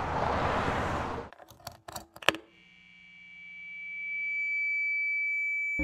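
A rushing noise that drops away, then a few sharp clicks as a cable jack is plugged into an electric guitar. A steady high electric tone from the guitar rig follows and swells slowly louder, as amplifier feedback does.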